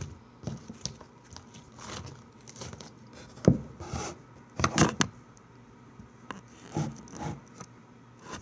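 Slime being poked and squeezed by hand: irregular sticky squishes, smacks and small clicks, loudest about three and a half seconds in and again around five seconds in.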